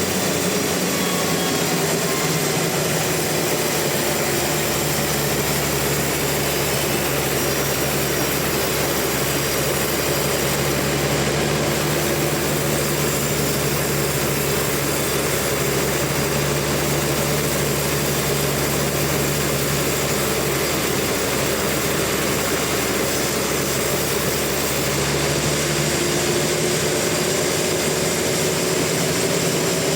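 Sawmill saw running steadily through a large rain tree (trembesi) log: a continuous loud mechanical drone whose low note changes about three-quarters of the way through.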